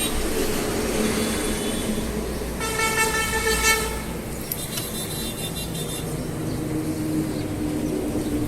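Steady road-traffic noise, with a vehicle horn honking once for about a second, about three seconds in.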